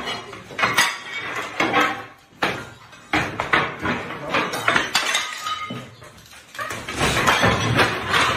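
Ceramic wall tiles being levered off a wall with a long steel bar: irregular cracks, clinks and scrapes as tiles break loose, with a louder, denser clatter near the end as a section of tiles comes down.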